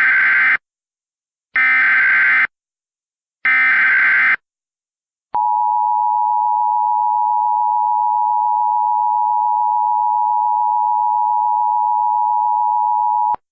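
Emergency Alert System header: three identical bursts of data tones, each about a second long, then the steady EAS attention tone held for about eight seconds. This signals the start of an emergency alert.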